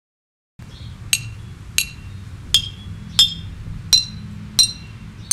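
A row of bottles filled with different amounts of water, struck one after another with a stick: seven clear ringing clinks about two-thirds of a second apart, each a little higher in pitch than the last, over a low steady hum.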